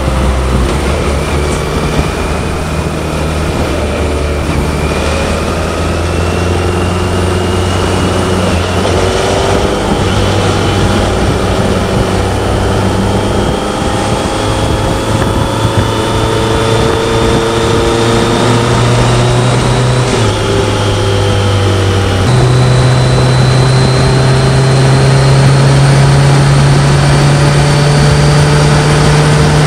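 BMW K1100LT motorcycle's inline-four engine running steadily, its pitch creeping slowly upward, with a couple of sudden shifts in the deeper tones near the end.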